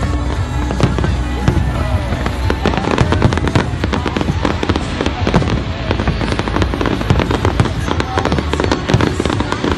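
Fireworks display: a dense, continuous string of bangs and crackles as shells burst overhead and fountains fire.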